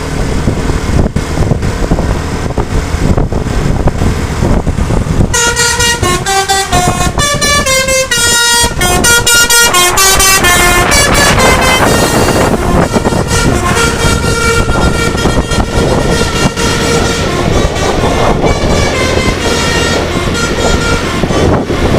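Bus engine and road noise. About five seconds in, a basuri (telolet) musical air horn starts playing a tune of quick notes stepping up and down, which carries on over the engine noise to the end.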